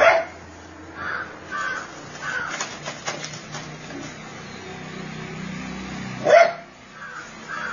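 Dog barking, a few short barks with the loudest about six seconds in.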